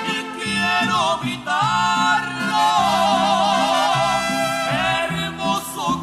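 Live norteño-banda music with tuba, accordion and saxophone, playing an instrumental passage between sung lines. A wavering lead melody with strong vibrato runs over a stepping tuba bass line.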